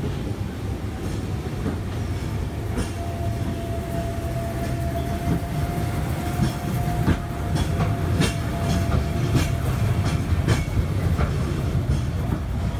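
Hong Kong Peak Tram funicular car rolling past on its rails without stopping: a steady low rumble with many sharp clicks from the wheels on the track and a thin steady whine that settles slightly lower in pitch. It cuts off suddenly at the end.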